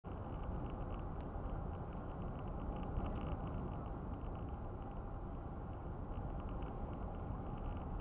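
Steady road and tyre noise of a car cruising at about 55 mph, heard from inside the cabin. There is a faint click about a second in.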